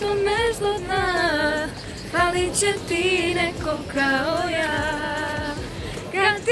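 Two women singing a melody together without accompaniment, with long held, wavering notes.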